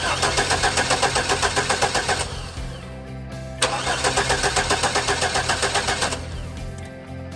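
Chevy S-10 pickup's starter cranking the engine in two attempts of about two seconds each, with a rhythmic chugging pulse; the engine does not catch, which the owner traces to a failed in-tank fuel pump.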